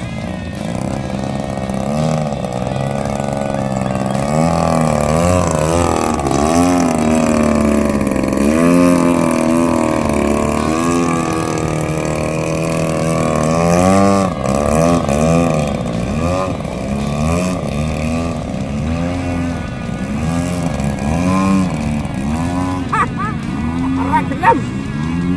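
110cc two-stroke gasoline engine of a large-scale MXS aerobatic RC plane running in flight, its pitch swinging up and down over and over, about once a second, as it manoeuvres.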